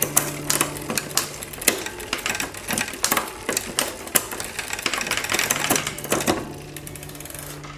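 Bicycle drivetrain clicking as the chain runs over the rear cassette and derailleur, many quick irregular clicks that stop about six seconds in.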